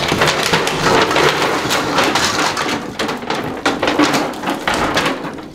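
A packed clear plastic sleeve of plastic Christmas ball ornaments being swung and shaken hard, the balls clattering and rattling against each other and the packaging as they are flung out, a dense run of many small clicks and cracks.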